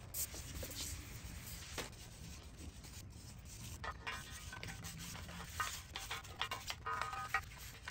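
Bristle brush scrubbing a wet aluminum engine block, rubbing over the cast metal in irregular strokes that grow busier in the second half.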